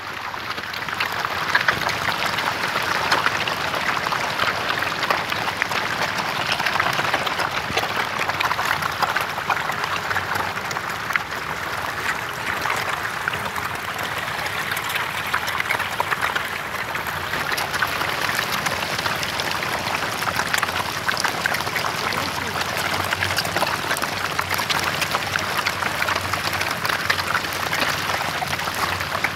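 A dense mass of hybrid magur catfish churning at the pond surface: a steady crackling patter of countless small splashes and slaps of water.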